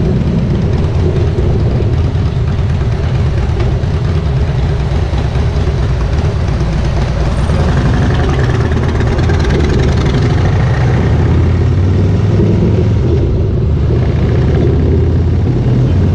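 Harley-Davidson Softail Slim's air-cooled Twin Cam 103 V-twin running steadily at low speed in traffic, with a rush of higher hiss from about eight to eleven seconds in.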